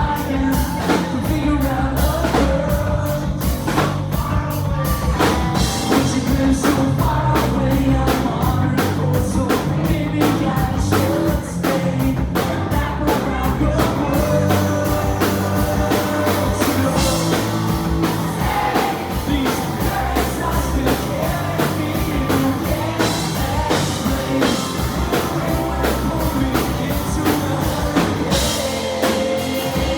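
Live rock band playing a song, with a male lead vocal over a steady drum-kit beat and bass.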